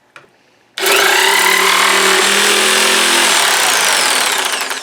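Hyper Tough electric jigsaw running: it starts abruptly about a second in, runs loud and steady for about three and a half seconds, then winds down near the end.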